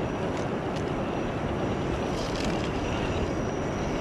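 Steady rush of river water, with the whir of a 1/10-scale Gmade GS02F Buffalo TS pickup crawler's motor and drivetrain and a few light ticks of its tyres on rock as it crawls over the rocks.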